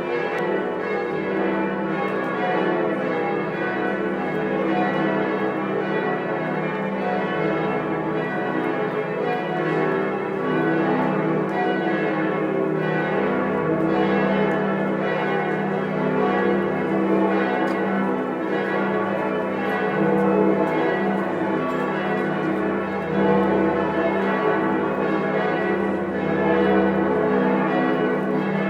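Many church bells ringing together in full peal, their strokes overlapping into a dense, continuous ring at an even level.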